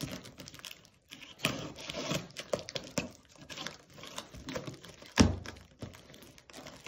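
Box cutter slicing and scraping through packing tape on a cardboard box, with irregular tearing, crinkling and scratching of tape and cardboard. A single loud thump comes a little past five seconds in.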